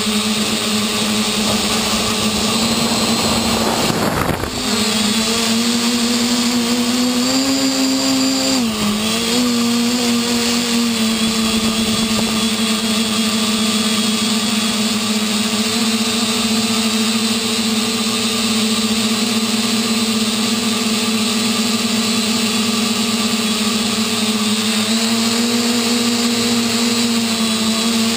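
V-tail quadcopter's electric motors and propellers humming steadily, heard from the onboard camera. The pitch climbs briefly and drops back about eight seconds in, and there is a short rush of noise about four seconds in.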